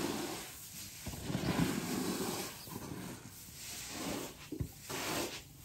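Dried maize kernels rustling and hissing as they are scraped and shovelled across a concrete roof with plastic tubs, in several uneven sweeps.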